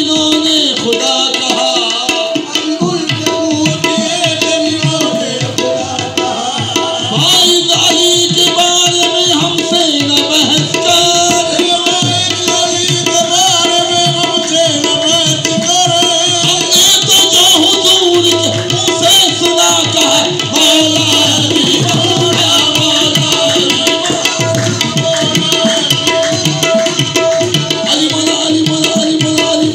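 Qawwali music with no singing: brisk tabla drumming under held, steady melody notes.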